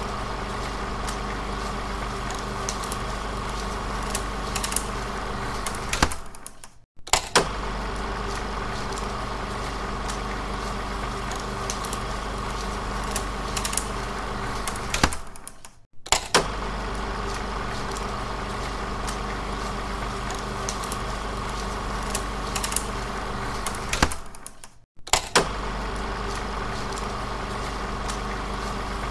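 16mm film projector running: a steady mechanical whir with a low hum and scattered clicks. It cuts out briefly three times, about nine seconds apart, and each restart begins with a sharp click.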